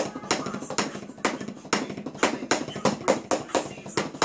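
Wooden drumsticks playing a rudiment on a drum practice pad: sharp taps, with louder accented strokes about four a second and softer strokes in between.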